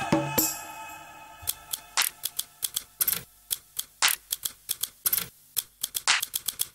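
Dance backing track: a ringing note fades out, then from about a second and a half in comes a run of sharp clicks and snaps in a stop-start rhythm, the kind of click beat that dancers pop and tick to.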